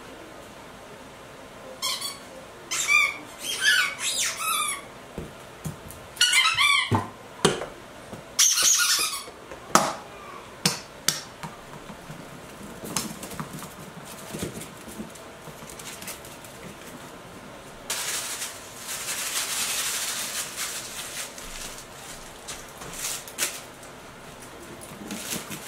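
Squeaky dog toy being chewed by a puppy: runs of short, high squeaks over the first ten seconds, then scattered taps and a few seconds of rustling.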